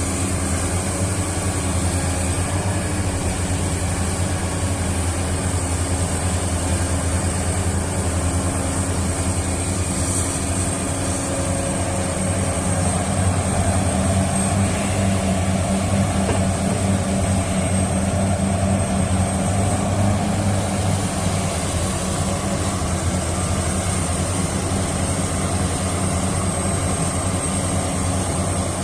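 Heavy diesel earthmoving machinery running steadily: a large hydraulic excavator working while loading an articulated dump truck, with a deep engine drone and a thin high whine over it, swelling a little midway.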